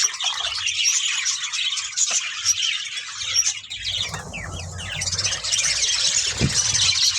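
A large colony of budgerigars chattering, with many overlapping chirps and warbles that run on without a break.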